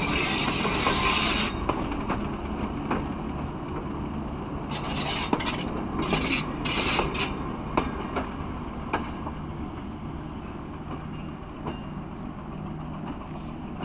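Passenger train pulling away along the track: wheels clicking over rail joints over the diesel locomotive's low engine drone, fading slowly as it recedes. Bursts of hissing come at the start and again about five to seven seconds in.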